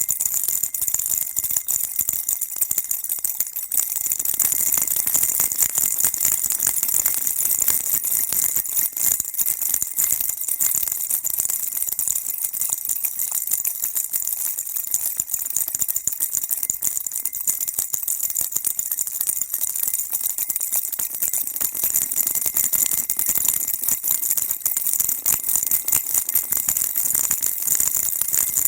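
Baby rattle shaken continuously, a dense, steady rattling with a bright, jingly edge.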